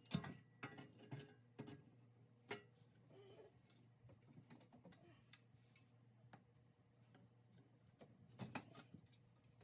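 Faint, scattered clicks and light knocks at irregular intervals, the strongest just after the start and again near the end, over a steady low hum.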